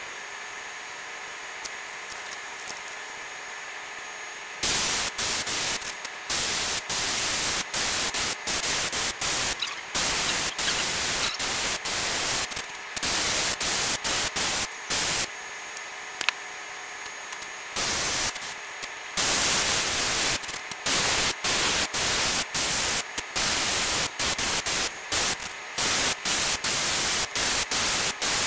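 Gravity-feed airbrush spraying paint with a hiss that starts and stops repeatedly as the trigger is pressed and released, in bursts from under a second to a few seconds long. A fainter steady hiss runs beneath, and is all that is heard for the first few seconds.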